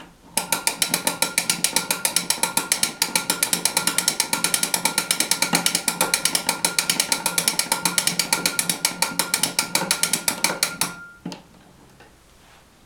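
Victor Victrola VV-50 gramophone being wound by its hand crank: the spring motor's ratchet clicks rapidly and evenly as the crank turns, then stops about eleven seconds in when the spring is wound.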